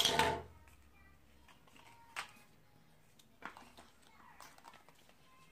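Cardboard packaging inserts from a phone box being handled on a tabletop: a short loud rustle and scrape at the start, then a few light taps and clicks.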